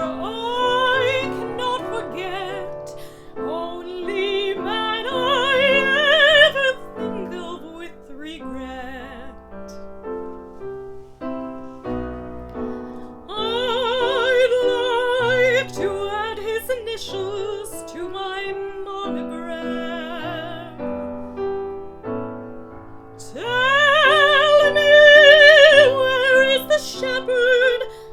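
A woman singing a slow song with strong vibrato over piano accompaniment. The voice pauses for a few seconds around the middle while the piano carries on, then returns and holds long, loud notes near the end.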